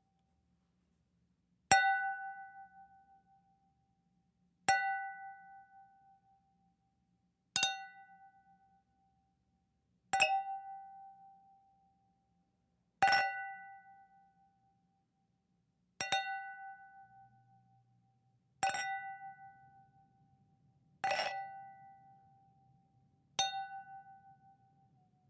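Wine glasses clinked together nine times, a few seconds apart, each clink ringing on a clear tone and fading away.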